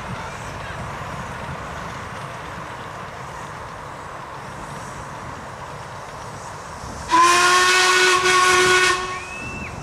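Miniature steam railway train running past with a steady rumble, then about seven seconds in a loud steam whistle sounds one blast of about two seconds, dipping briefly partway through.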